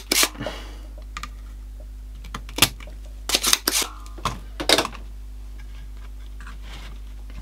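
Irregular clicks, taps and knocks of a soldering iron being laid down and a small transistor radio chassis being handled on a workbench. The handling comes in a cluster in the middle, over a steady low hum.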